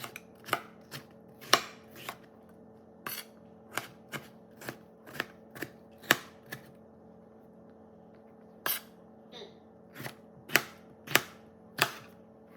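Knife chopping vegetables on a cutting board: single sharp strokes, irregular, about one or two a second, with a pause of about two seconds in the middle.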